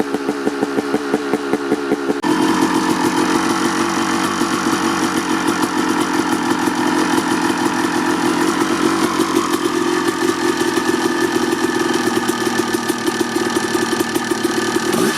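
1989 Honda CR250R 250cc two-stroke engine with an FMF Gnarly pipe, warming up after a cold start. It idles with an uneven, pulsing beat, then about two seconds in it jumps abruptly to a faster, louder, steady running note that holds. Near the end the revs begin to fall.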